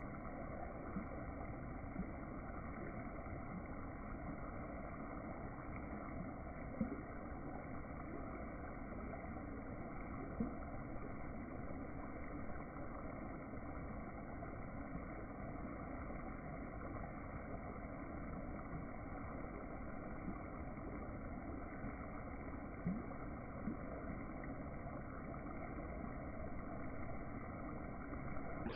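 Food sizzling steadily in hot oil, with a few sharp pops.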